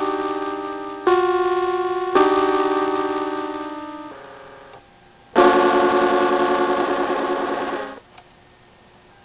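Circuit-bent electronic keyboard sounding held, warbling chord tones that jump abruptly to new clusters about one and two seconds in and fade away. A louder, denser cluster comes in about halfway and cuts off suddenly near the end, leaving a short lull.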